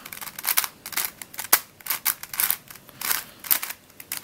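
Plastic layers of an Octo Star twisty puzzle being turned rapidly by hand while scrambling, making a quick run of clicks and scraping clacks, with one sharper click about a second and a half in.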